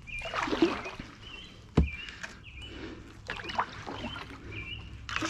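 Kayak paddle strokes: the blades swish and splash through the water about once a second, with a single sharp knock a little under two seconds in. Short high chirps repeat several times over the strokes.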